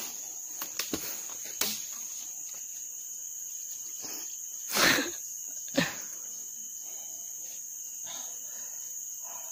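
Steady, shrill insect chorus in tropical forest, running without a break. Over it come a few short knocks in the first two seconds, and one louder brief noise about five seconds in, as water is drunk from a cut bamboo stem.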